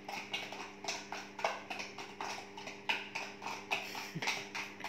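A utensil scraping and tapping in a plastic measuring jug, roughly three strokes a second, as the wet muffin mixture is stirred and poured. A steady low hum runs underneath.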